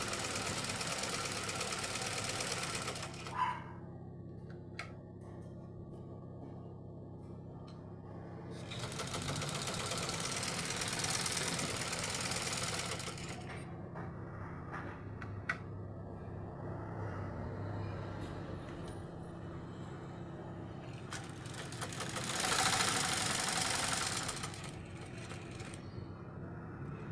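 Black-head Deluxo domestic sewing machine running in three runs of a few seconds each, with a quieter hum and a few sharp clicks between them. It has just been fitted with a new shuttle and tensioner, adjusted and lubricated to cure constant jamming.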